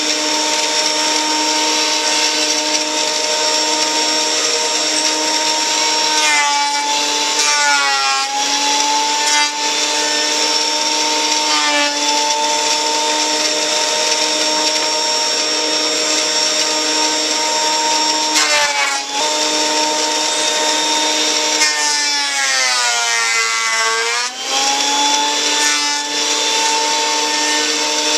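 Benchtop thickness planer running, its motor giving a steady high whine over the cutterhead noise. Several times the pitch sags and recovers as the motor takes the load of a board passing through, most deeply about three-quarters of the way in.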